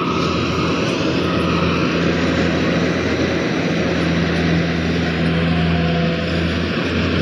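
Rice combine harvester running steadily in the field, a loud even engine-and-machinery drone with a constant low hum.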